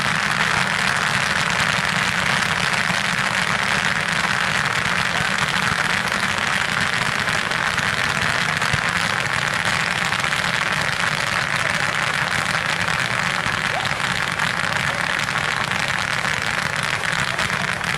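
A large bank of ground firework fountains firing all at once, making a dense, steady crackle of many small pops.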